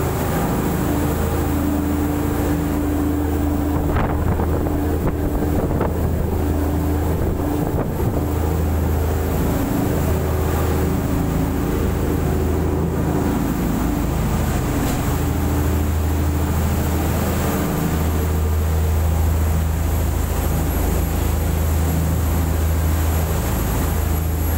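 Motor boat under way at speed: its engines running as a steady low drone, with wind buffeting the microphone and the rush of water from the bow wave and wake.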